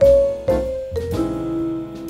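Studio jazz quartet recording: vibraphone and piano over double bass and drums. A short run of struck notes steps down in pitch over the first second, then a note is held.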